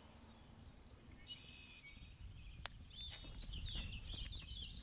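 Outdoor ambience: small birds chirping in short bursts over a low rumble, with one faint sharp click about two and a half seconds in. The sound cuts off abruptly at the end.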